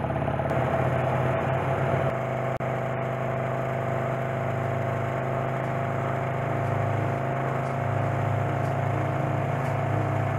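1928 Norton motorcycle with a J.A.P. engine running at a steady road speed, with wind and road noise; the sound briefly drops out about two and a half seconds in.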